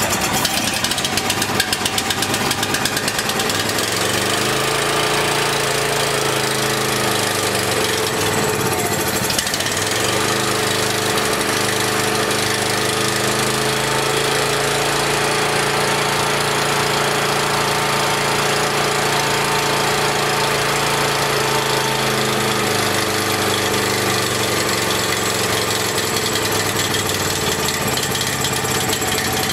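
Honda GX340 single-cylinder engine on a Wacker generator running rough on choke, its speed swinging up and down for about twenty seconds, then settling to a steadier run. It smooths out while carb cleaner is sprayed around the intake, the sign of an air leak that the mechanic puts down to the carburetor insulator block.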